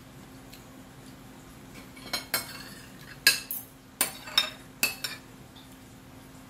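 Metal fork and spoon clinking and scraping against a plate: about eight sharp clinks with brief ringing, in quick clusters between about two and five seconds in.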